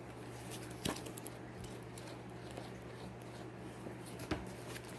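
Quiet room with a steady low electrical hum and a few faint taps and clicks from objects being handled.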